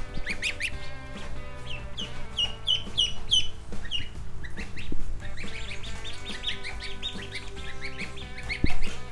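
A brood of baby chicks and ducklings peeping continuously, a dense run of short, high chirps. A thump about five seconds in and a louder one near the end.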